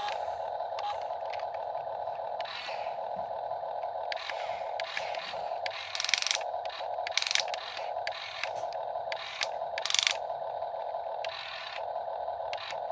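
Electric motors of a Huina 1/14 scale RC excavator whining as its functions are worked, stopping and starting several times. Short scraping crackles come about six, seven and ten seconds in.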